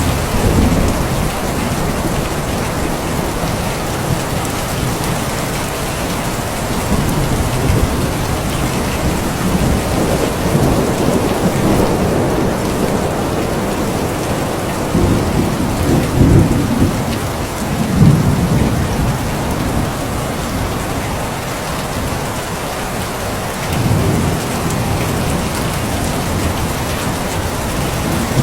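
Steady heavy rain falling, with low rolls of thunder rumbling several times through it, the strongest roll about two-thirds of the way through.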